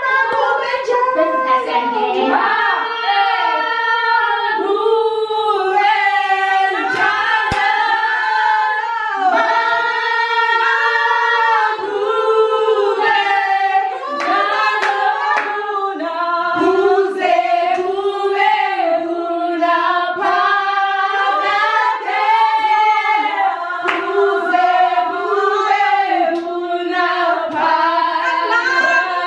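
A group of women singing together unaccompanied, several voices at once, with hand clapping along.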